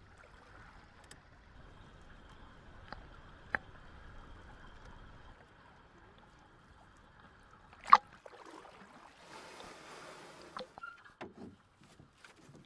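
Swimming-pool water lapping and sloshing close up, with scattered small clicks and one sharp knock about eight seconds in, followed by a brief hiss of splashing.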